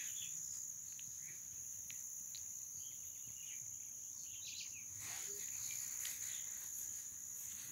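Steady high-pitched trilling of insects, with a few faint short bird chirps.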